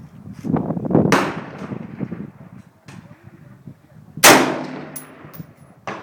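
Hand-built AR-15 rifle firing two shots about three seconds apart, each a sharp crack followed by a long echoing tail; the second shot is the louder.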